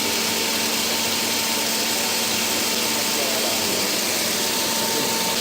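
Bottero Pratica Plus CNC glass-working centre running as it mills glass: a steady hiss with a steady whine, unchanging throughout.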